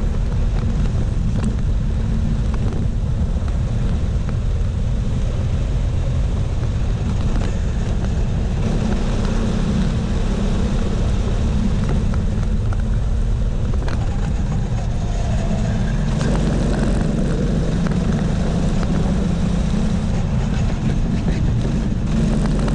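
Kart engine running hard at racing speed, heard from a camera mounted on the kart, its note shifting in pitch as the driver brakes and accelerates through corners, with a steady rush of wind and road noise.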